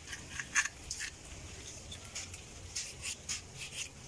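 Kitchen knife scraping and scoring the skin of a whole fish in short, quick strokes: a series of crisp rasping scratches, about two or three a second.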